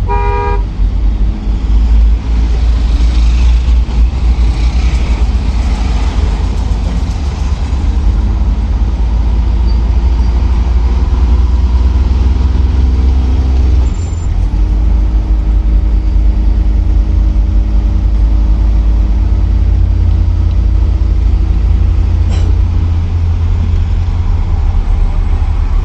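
Danfo minibus engine running in traffic with a heavy low rumble, its pitch rising and falling as it pulls away and changes speed, dipping about halfway through before holding steady. A short horn toot comes at the very start.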